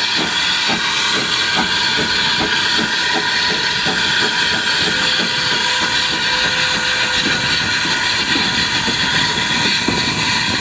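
Industrial saddle-tank steam locomotive working a train: steam hissing loudly and steadily, with a regular chuffing beat about two to three times a second underneath.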